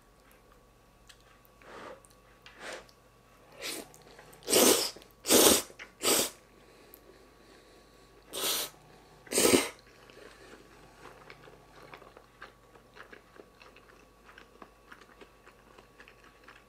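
A person slurping ramen noodles off chopsticks: about eight short sucking slurps over the first ten seconds, the loudest in the middle, then quiet chewing with small mouth clicks.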